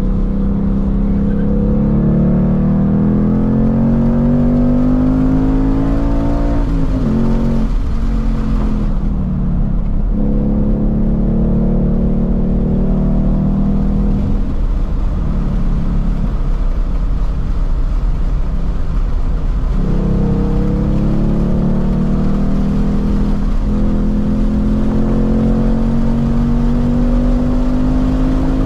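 A 2021 Ford Mustang Mach 1's 5.0-litre V8, heard from inside the cabin at full track pace. The revs climb, drop sharply about seven seconds in, hold steady, ease off for a spell, then climb steadily again near the end as the car accelerates to about 100 mph.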